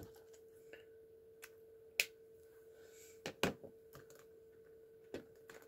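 A few sharp plastic clicks as a marker's cap is pulled off and snapped on while the markers are handled, over a faint steady hum.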